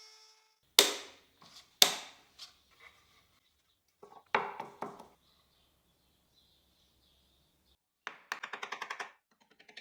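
Wood pieces and tools being handled on a workbench: two sharp knocks about a second apart, a softer knock a few seconds later, then near the end a quick run of clicks like a ratchet.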